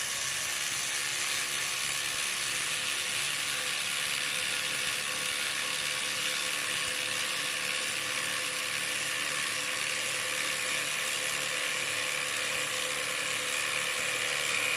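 A Makita 40V max and a Milwaukee Gen 3 cordless impact driver hammering together at top speed, a steady dense rattle. They are driving lag screws into treated 6x6 timber without pilot holes.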